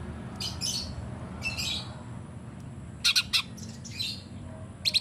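Cucak cungkok singing in short, high chirpy phrases, with quick rattling runs of repeated notes about three seconds in and again at the end: the rapid 'tembakan' bursts valued in this songbird's song.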